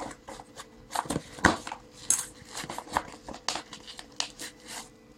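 Packaging being handled by hand during an unboxing: a run of irregular rustles, taps and clicks, the loudest about one and a half seconds in.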